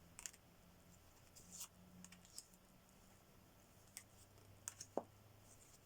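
Near silence: quiet room tone with a handful of faint, scattered clicks and taps.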